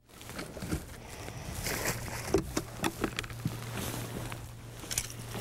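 Scattered knocks and clicks of someone moving about and handling gear on a bass boat's deck, over a steady low hum. The strongest knock comes a little over two seconds in.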